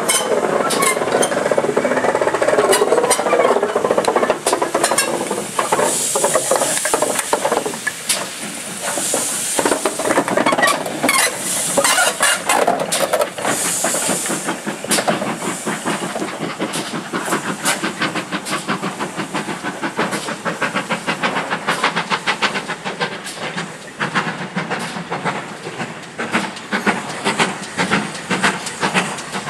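GWR pannier tank steam locomotive hissing steam, with louder bursts of hiss a few times in the first half, over a dense run of rapid clicks and clanks.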